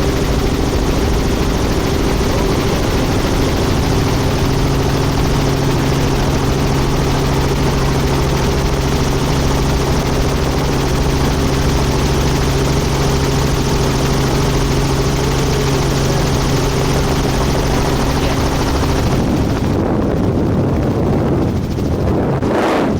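Helicopter in flight, heard from inside the cabin: a steady rotor and engine drone with a constant low hum. About 19 seconds in the sound changes, the hiss thinning and the hum fading.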